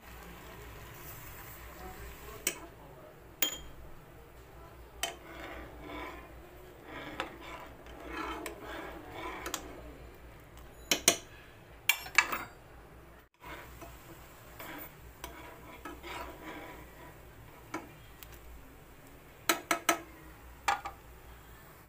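Steel spoon stirring tea at the boil in a nonstick pan, scraping and clinking against the pan. Sharp clinks come now and then, with a quick run of three near the end.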